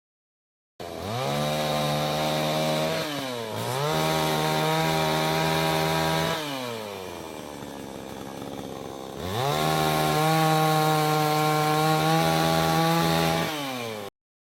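Chainsaw sound effect: the engine revs up about a second in and holds high, dips briefly and comes back up, then falls to a low idle for about three seconds before revving up again and cutting off abruptly near the end.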